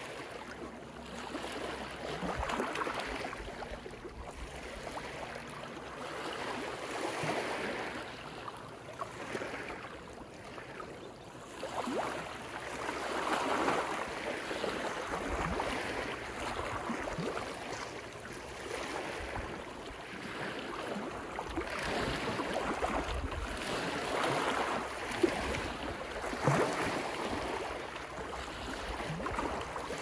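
Small Pacific waves lapping and splashing against the rocks and stones of a rocky shore, the wash swelling and falling back every few seconds. The waves grow louder in the last third, with a couple of sharper splashes near the end.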